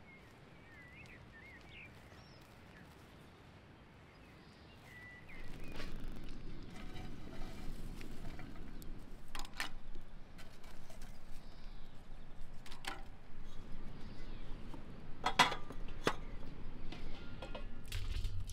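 A few bird chirps over quiet ambience, then from about five seconds in a rustling, crunching scrape of metal tongs working through burning charcoal in a metal scoop, with a handful of sharp metallic clinks, as hot coals are loaded into a samovar.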